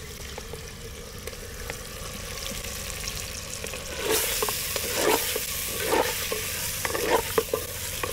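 Pieces of goat testicle sizzling in hot mustard oil in a clay pot. About four seconds in the sizzle grows loud, and a spoon scrapes against the pot about once a second as the pieces are stirred into the masala.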